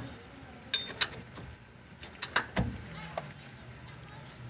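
Hand tools and metal parts knocking and clicking during rear axle reassembly: a few sharp clicks and knocks, with one dull thump about two and a half seconds in.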